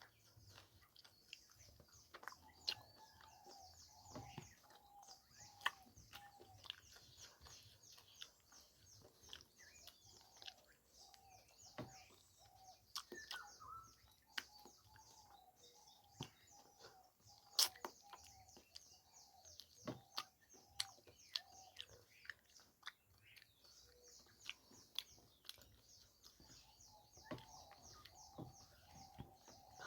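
Close-miked eating of curry and rice: scattered sharp clicks and wet smacks of chewing and utensils, the loudest about two-thirds of the way through. Behind them, a fast, even high-pitched chirping trill with a lower repeating chirp under it goes in long runs, stopping and starting a few times.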